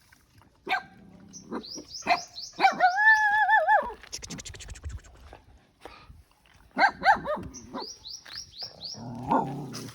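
A stray dog whining, one wavering whine lasting about a second, among runs of short high squeaks and scattered small knocks.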